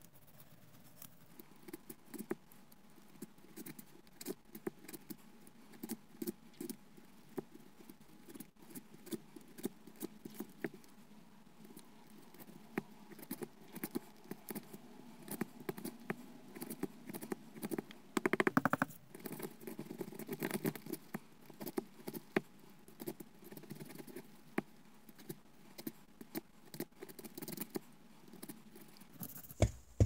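Sharpened wooden pick scraping and picking rust out of the spring channel of a rusty Colonial Barlow pocket knife: faint, irregular little scratches and clicks, with a louder stretch of scraping a little past halfway.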